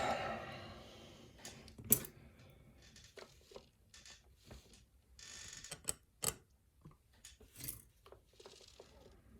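Scattered small metal clicks and taps of a challenge lock being taken apart by hand to get at its driver pins and springs, with one sharper click about two seconds in and a brief soft rustle around the middle.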